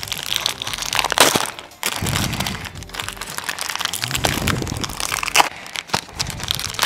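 Plastic booster-pack wrappers crinkling and tearing as Pokémon trading-card packs are ripped open by hand, a dense run of crackles and sharp snaps.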